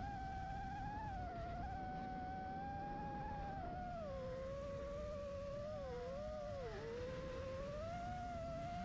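FPV racing quadcopter's motors and propellers whining, the pitch wavering with the throttle. It drops about four seconds in, wobbles, and rises again near the end, over a low rush of prop wash and wind.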